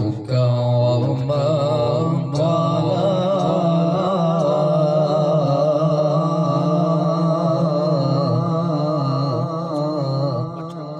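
A man's voice reciting the Quran in the melodic tilawat style into a microphone, drawing out long phrases with a wavering, ornamented pitch. The voice fades near the end.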